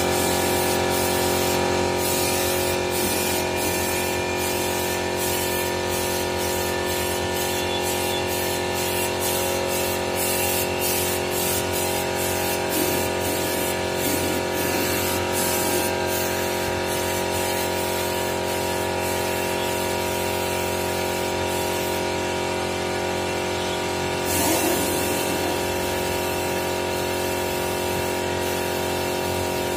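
Gravity-feed paint spray gun hissing in frequent short pulses as paint is sprayed, over the steady hum of the portable air compressor feeding it. The spraying stops for a couple of seconds past the middle, then resumes with a louder burst.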